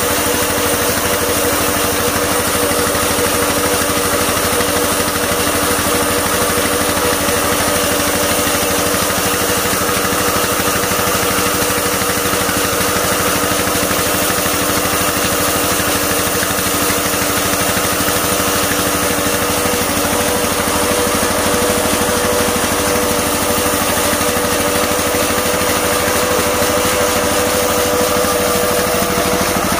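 15 HP Kirloskar diesel engine running steadily at a constant speed, turning a flat-belt pulley drive; a loud, even mechanical drone with no change in pace.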